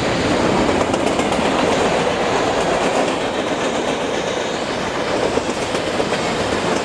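Freight cars of a fast-moving train, autoracks and then covered hoppers, rolling past close by. Their steel wheels make a steady, loud rolling noise on the rails.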